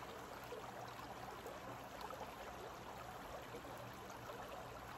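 Shallow creek running over rocks: a faint, steady burble of flowing water.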